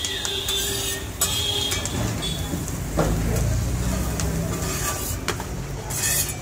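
Steel spatula scraping and clinking on a large flat iron griddle (tawa) as a fried egg dish is scooped up, a few sharp strokes over a steady low rumble.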